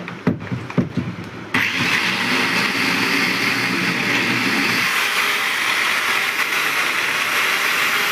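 A few knocks and clicks, then an electric grinder switches on about a second and a half in and runs steadily with a loud, high whir.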